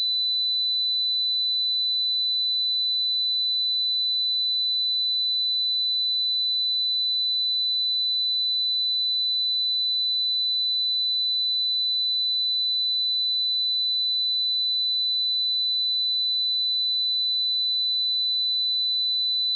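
A pure 3995 Hz sine-wave test tone, one steady high-pitched note held unchanged.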